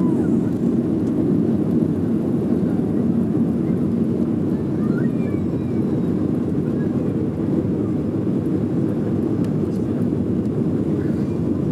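Boeing 737's CFM56 turbofan engines at takeoff thrust, heard inside the passenger cabin as a steady, loud, deep rushing noise while the jet finishes its takeoff roll and lifts off the runway.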